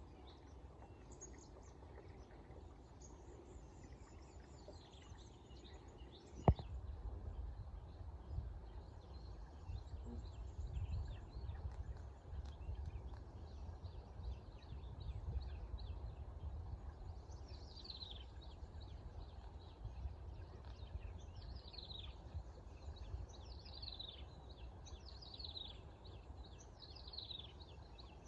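Birds chirping, with one bird repeating a quick falling chirp about every second and a half through the second half. A low rumble runs underneath and gets louder after a single sharp click about six and a half seconds in.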